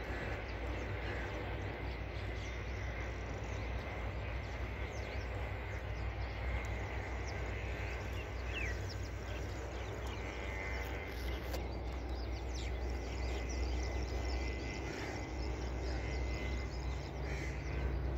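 Outdoor ambience: birds chirp and call now and then over a steady low rumble.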